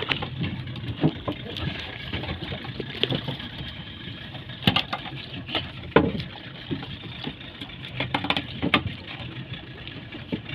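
Small fishing boat's engine running steadily at trolling speed, with a few scattered sharp knocks over it.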